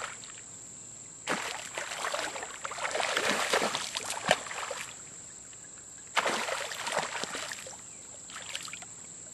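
A fish splashing and thrashing at the water's surface in two bouts: a longer one about a second in and a shorter one past the middle.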